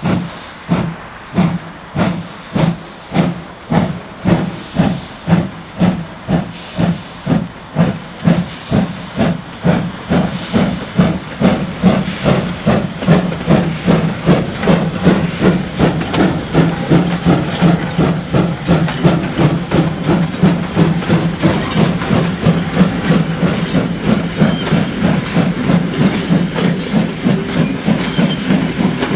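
VR Hr1 'Ukko-Pekka' steam locomotive pulling away with its train: exhaust chuffs start about one a second and quicken steadily to several a second as it gathers speed, over a continuous hiss of steam.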